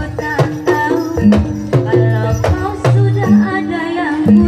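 Live jaranan music from a Javanese folk ensemble: sharp drum strokes several times a second over long, steady low pitched tones, with a wavering melody line above.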